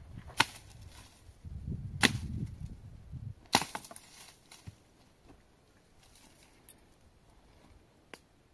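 A few sharp knocks or cracks, three loud ones about a second and a half apart, then a couple of fainter ones.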